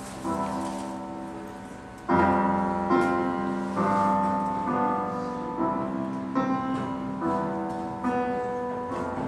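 Roland electronic keyboard played with a piano sound: slow, sustained chords, a new chord struck about every second and left to ring.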